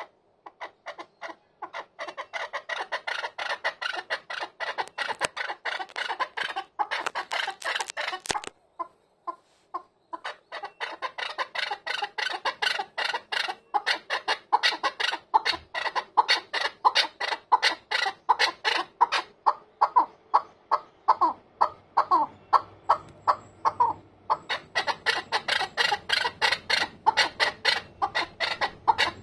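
Chukar partridge calling a rapid clucking "kok-kok-ko" series, several notes a second, in long runs with two short breaks, growing louder from about ten seconds in.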